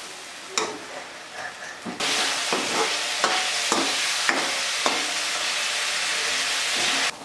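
Yak beef frying in a steel wok, sizzling loudly from about two seconds in as the gravy cooks off. A metal ladle scrapes and knocks against the pan in repeated stirring strokes. The sizzle cuts off suddenly just before the end.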